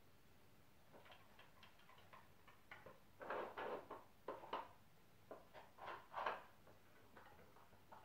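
Wooden Dog Twister dog puzzle clicking and scraping as a dog noses its pieces: a few light ticks, then denser clattering in the middle.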